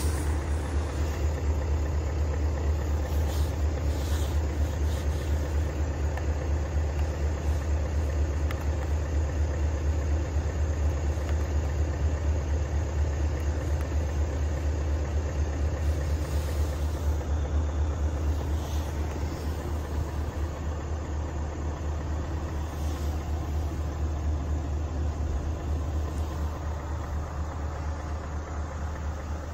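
Scania S580's 16-litre V8 diesel idling, heard from inside the cab: a steady low hum, a little quieter near the end.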